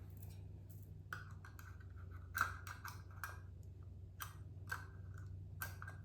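Metal screw bands being twisted down onto the threads of glass canning jars: a run of short scraping clicks, some with a brief metallic ring, over a steady low hum.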